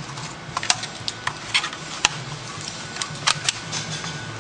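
Irregular plastic clicks and snaps as a ThinkPad T400s keyboard is pried up and lifted out of its frame with a small tool, with the sharpest snap about two seconds in.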